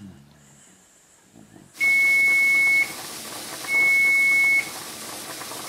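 Electronic alarm beeping: one high-pitched tone in beeps of about a second with short gaps, starting almost two seconds in, over a steady hiss.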